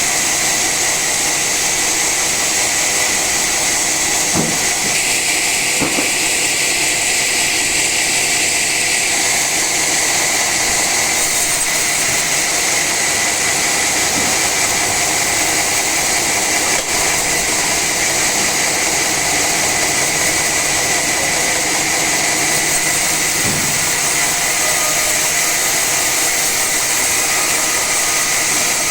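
Sawmill saw cutting through an old teak log: a steady, loud run with a constant high whine over a hiss, with a few faint knocks.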